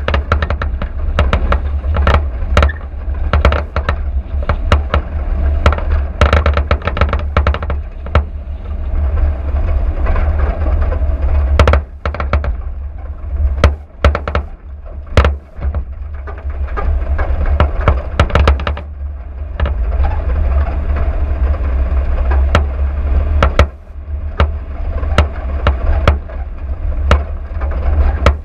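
Car driving over a rutted dirt track, picked up by a camera mounted on the vehicle: a steady low rumble with frequent sharp knocks and rattles as it jolts over the bumps.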